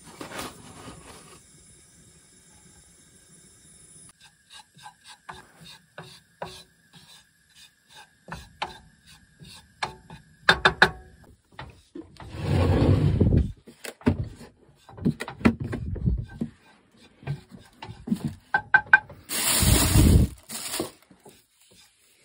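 Kitchen handling noises: scattered clicks and knocks of containers being picked up and set down, and a cooler being pulled open with a longer, loud noisy stretch about halfway through and another near the end.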